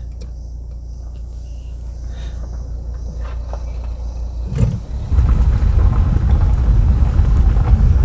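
A compact SUV drives slowly past over a broken tarmac road while a vehicle engine idles with a low, steady hum. About five seconds in, after a short knock, the recording vehicle pulls away, and a loud low rumble of engine and road noise takes over.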